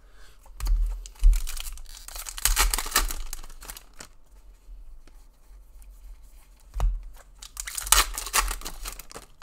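Trading cards being handled and slid against each other, then a foil-wrapped NRL Elite trading-card pack torn open with a crinkling rip about eight seconds in.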